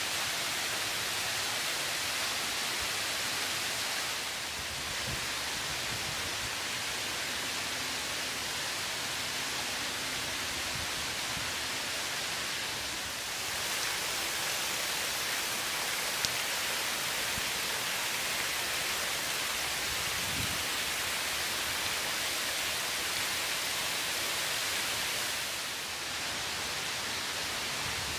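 Water pouring in thin sheets off fountain ledges into shallow basins: a steady splashing hiss that dips slightly three times as the distance to the falling water changes.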